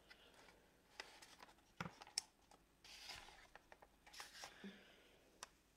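Faint handling noise of a 3D-printed mask being taken off and turned over: scattered light clicks and short rustles.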